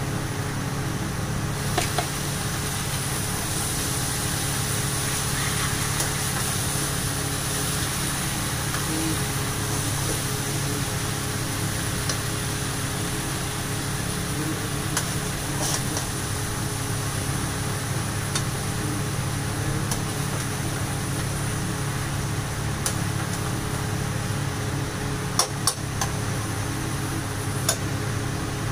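Chicken masala sizzling steadily as it fries in a steel kadai on a gas burner, over a steady low hum, with a few sharp metal clicks from the pan and spatula.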